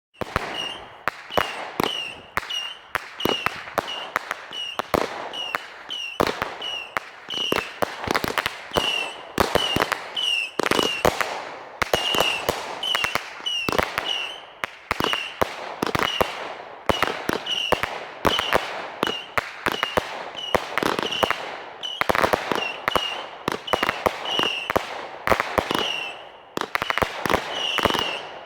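Fireworks going off in a rapid string of sharp bangs, about two a second, each followed by a short high tone. From about eight seconds in the shots come thicker and overlap.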